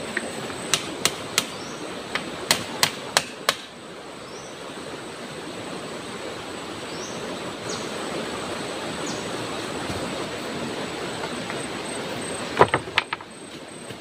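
Steady outdoor hiss with a run of about eight sharp cracks in the first few seconds and three more close together near the end.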